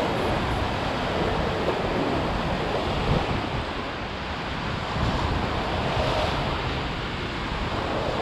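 Sea surf breaking and washing over the rocks at the foot of a sea cliff, with wind buffeting the microphone in a low, uneven rumble.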